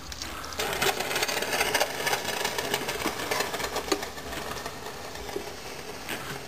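Hand ratchet clicking rapidly as the screws holding the stock fuel pressure regulator to the fuel rail are turned out, starting about half a second in.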